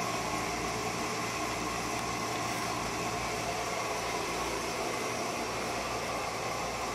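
A steady, even hiss with no change in level.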